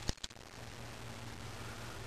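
A sharp click about a tenth of a second in, with a fainter one just after, from a tiny balisong being handled, then a steady low hum.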